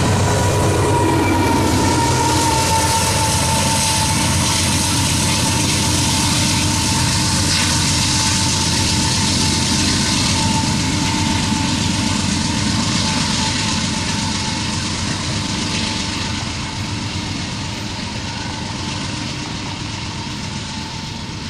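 Canadian Pacific GE AC4400CW distributed power locomotive at the rear of a train of covered hopper cars, its diesel engine running as it passes and moves away, its pitch falling in the first couple of seconds. Steady wheel rumble and rattle from the cars runs underneath, and the whole sound slowly fades.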